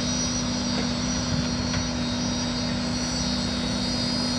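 Truck-mounted concrete boom pump running steadily while pumping concrete, a constant engine drone with a steady hum.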